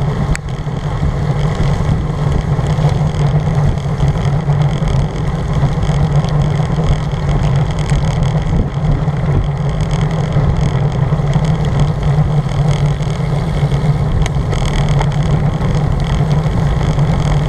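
Steady wind rush over the microphone of a camera mounted on a moving road bicycle, with the hiss of bicycle tyres on a rain-soaked road.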